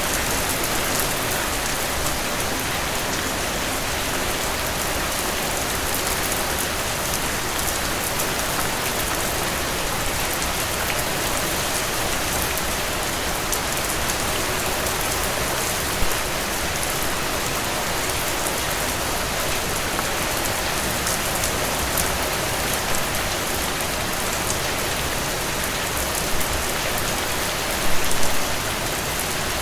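Heavy rain falling steadily, a dense even hiss, with a few brief louder splashes: one about halfway through and a short cluster near the end.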